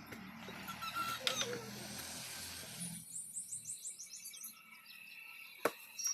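Faint steady noise, then a bird's quick series of high chirps about three seconds in, and a single sharp click near the end.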